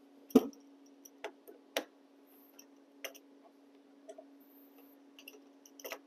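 Hand tools and wire connectors clicking and tapping as automotive wiring is handled and fitted, a handful of sharp clicks with the loudest about half a second in, over a steady low hum.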